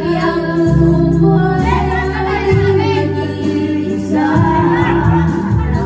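A woman singing karaoke into a microphone over a music backing track with a steady bass line, heard through the sound system.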